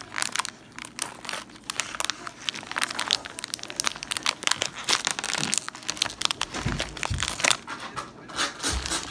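Plastic snack packet crinkling and crackling as it is handled and pulled open by hand, with a few dull bumps about two-thirds of the way in.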